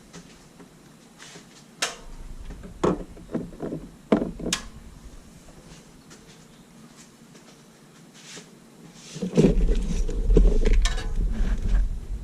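A few scattered knocks and clicks, like tools and parts being handled, then a loud low rumble from about nine seconds in.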